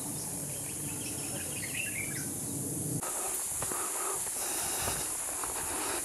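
Woodland ambience: a steady high hiss of insects, with a few faint bird chirps in the first half. The background changes abruptly about halfway through.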